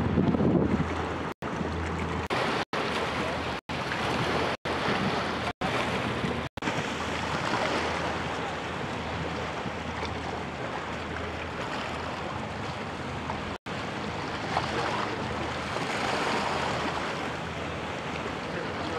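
Choppy river water and wind buffeting the microphone, over a low steady drone as a motor barge passes. The sound cuts out completely for an instant several times in the first seven seconds and once more about two-thirds of the way through.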